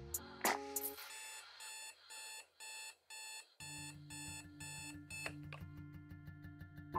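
Digital alarm clock beeping: short electronic beeps repeating several times a second. A low steady hum comes in about halfway through.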